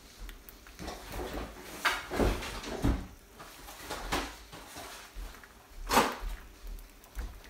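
Eggs frying in a little oil in a ceramic non-stick frying pan: a faint sizzle with irregular pops and crackles, the loudest about six seconds in.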